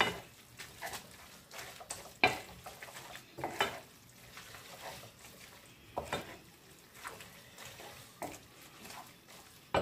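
Wooden spoon stirring and tossing spaghetti in a pan: soft scraping and stirring, broken by sharp knocks of the spoon against the pan every second or two at uneven intervals.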